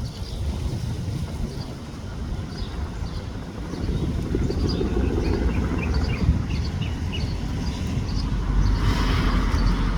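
Bell 206 helicopter running, heard as a steady low rumble that grows louder about four seconds in. Short high bird chirps come through midway.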